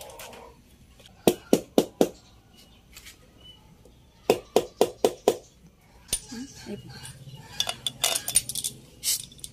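Metal tapping and clinking on the valve gear of a Suzuki K6A cylinder head as a steel tool and small parts are worked: a run of about four sharp taps a second in, another about four seconds in, then a longer run of lighter clinks.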